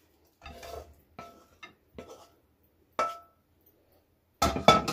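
Frying pan and wooden spatula knocking and scraping against a ceramic plate as scrambled eggs are pushed off onto it: a string of separate clinks and knocks, some ringing briefly, with the sharpest about three seconds in and a quick cluster near the end.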